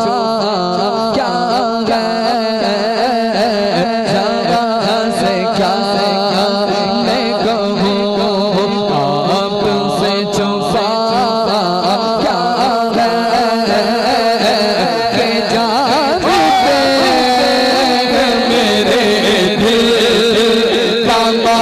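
A man singing an Urdu naat into a handheld microphone, his melody wavering over a steady held tone and a quick even pulse underneath. About two-thirds of the way through the melody shifts into long gliding phrases.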